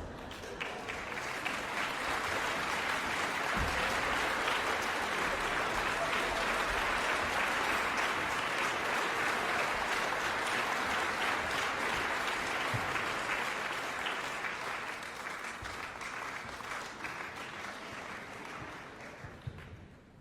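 Concert audience applauding, building over the first few seconds and dying away near the end.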